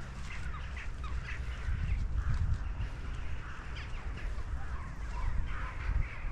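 Crows cawing repeatedly, many short harsh calls overlapping, over a low rumble on the microphone.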